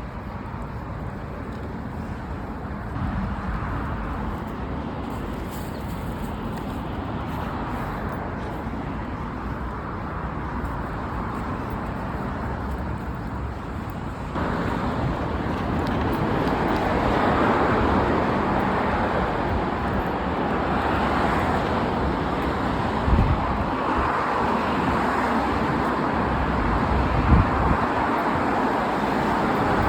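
Steady road traffic noise from passing cars, growing louder about halfway through.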